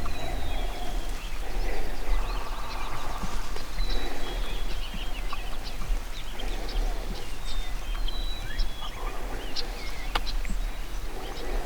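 Dawn chorus of small songbirds chirping in short, high notes, over a steady low rumble.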